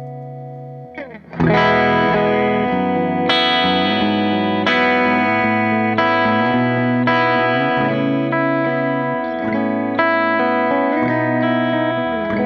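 Electric guitar played through an AmS Hurricane 40 tube amp head with four 6V6 power tubes. A held chord fades out, and after about a second chords are struck and left to ring, restruck about every second and a bit.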